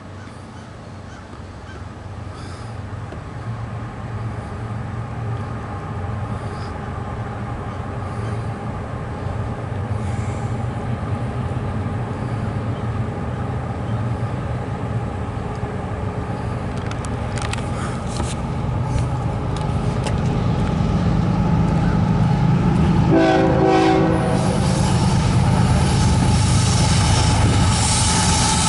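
CSX diesel freight locomotives approaching and passing, their engines' low rumble growing steadily louder. About five seconds before the end comes one short horn blast, then wheel noise and clatter as the lead units go by.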